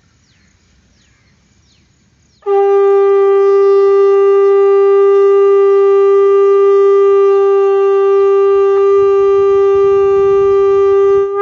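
Conch shell (sangu) blown in one long, loud, steady note that starts about two and a half seconds in and is held for about nine seconds, with a short drop in pitch as it ends. Before it, faint repeated chirps.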